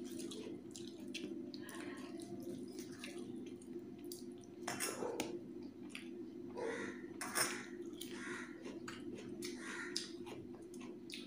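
Fingers mixing rice with thin chicken gravy on a steel plate: wet squelching and dabbing, with small clicks against the metal, loudest about halfway through and again a couple of seconds later.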